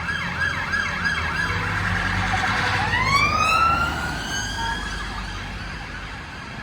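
Police car siren passing close by: a fast yelp of about four sweeps a second, changing about two seconds in to a slower wail that dips low, rises and holds, then fades toward the end. A steady low rumble of engine and traffic runs beneath.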